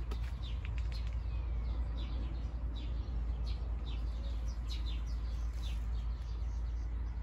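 Small songbirds chirping: many short, quick chirps that fall in pitch, several a second, over a steady low rumble.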